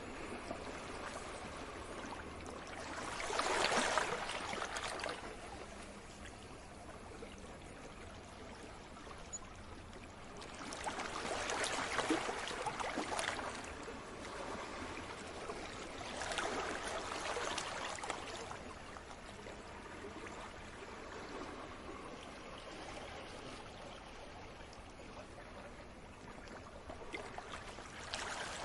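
Sea waves washing in and drawing back in a steady hiss of water, swelling into louder washes every several seconds.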